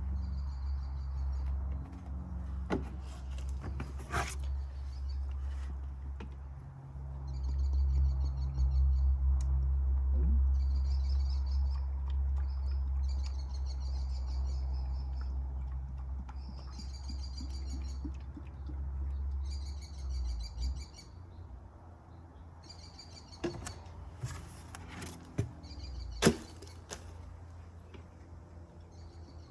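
Repeated bursts of high chirping trills from insects or birds over a low steady rumble that stops about two-thirds of the way through, with a few sharp clicks and knocks.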